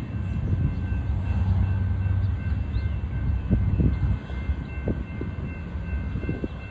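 Distant BNSF diesel locomotive approaching: a steady low engine rumble, with a few scattered knocks in the second half.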